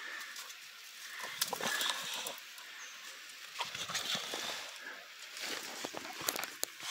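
A hunting dog scuffling with a collared peccary inside the peccary's burrow: irregular snuffling and scraping in the dirt, with a few sharp clicks.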